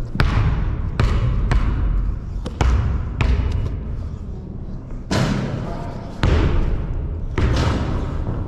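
Basketball being dribbled, about nine sharp bounces on the court floor at an uneven pace, over a steady low rumble.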